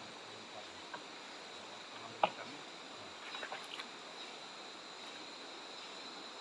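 Fishing net being hauled by hand into a small boat: faint rustling and dripping, a few light clicks, and one sharp knock about two seconds in, over a faint steady high tone.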